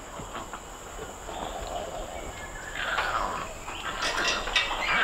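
Orangutan vocalising: a noisy call without a clear pitch that grows louder from about halfway through.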